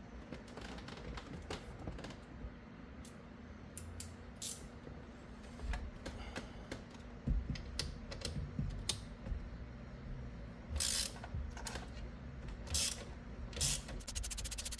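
Socket ratchet clicking in short runs as a 7 mm nut holding the steering-wheel airbag is backed off, with scattered knocks and clicks of parts being handled. A fast, even run of ratchet clicks comes near the end.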